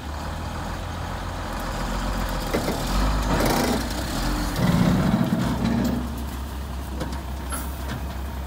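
Dump truck engine running steadily with the bed raised, swelling louder about halfway through as the truck pulls forward to let its load of manure slide out, then settling back.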